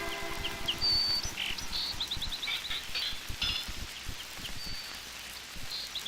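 Small birds chirping and whistling, including a quick repeated trill heard twice, with faint clicks in the background.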